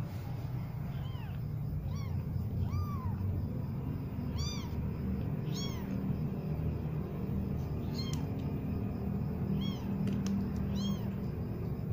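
Tiny newborn kittens mewing: about eight short, high-pitched mews that rise and fall, coming irregularly a second or so apart, over a steady low rumble.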